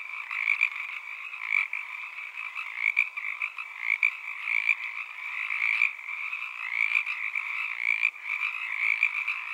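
A dense, unbroken chorus of many small animals calling over one another, the calls swelling in quick, overlapping pulses.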